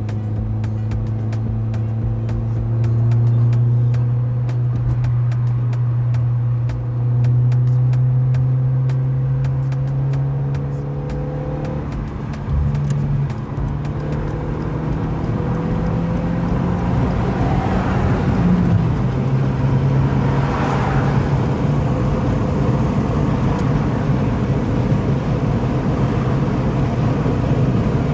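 Dodge SRT-4's turbocharged 2.4-litre four-cylinder engine running under way, its pitch climbing slowly as it pulls, with a brief break about twelve seconds in before it runs on steadily.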